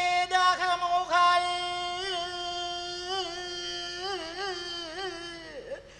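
A man chanting a verse in the slow, sung recitation style of Koodiyattam. After a few short phrases he holds one long note that wavers in ornamental turns, then slides down and fades near the end.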